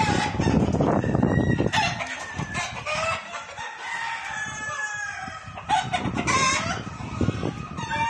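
A large flock of chickens clucking, with roosters crowing in long, overlapping calls, several at once. A low rumble runs under the first couple of seconds.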